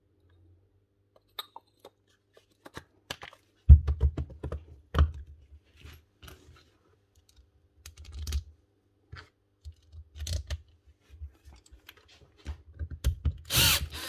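Metal tool parts being handled and fitted together on a hard floor: scattered clicks and knocks, with heavier thumps about four seconds in. Near the end a cordless drill runs briefly, driving a screw into the impact driver's housing.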